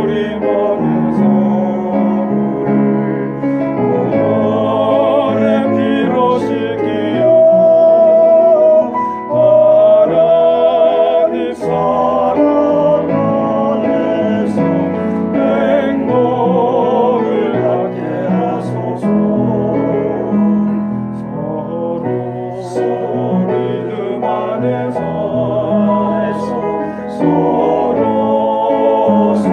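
Small vocal ensemble singing a hymn in several-part harmony, with piano accompaniment.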